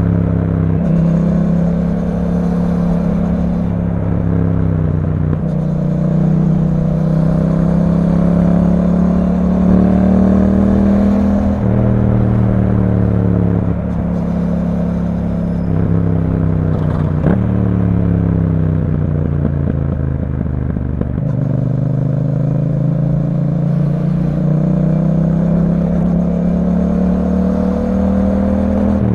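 Yamaha MT-07's 689 cc parallel-twin engine through an Akrapovic aftermarket exhaust, ridden in traffic. The exhaust note rises steadily as the bike accelerates, drops back at gear changes and as the throttle is rolled off, then climbs again several times.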